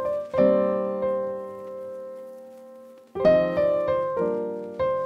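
Background piano music: a chord struck about half a second in and left to ring and fade, then a new run of notes about three seconds in.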